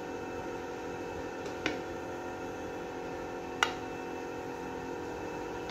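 Steady hum with two light clicks about two seconds apart, the second louder: a serving spoon knocking on the cooking pot as rice is dished out.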